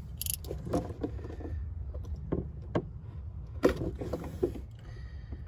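A few short, sharp clicks and scrapes of a cutting tool working open an electrical power cord to get at its two wires, over a low steady rumble.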